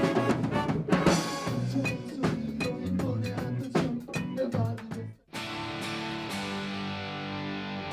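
Band music with drums and a fast, busy beat. About five seconds in, it cuts out for an instant and gives way to sustained, held chords.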